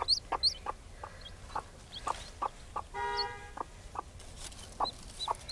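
Broody hen clucking in short, low notes every half second or so, with one longer, drawn-out note about three seconds in, while a newly hatching chick peeps high and thin at the start and again near the end.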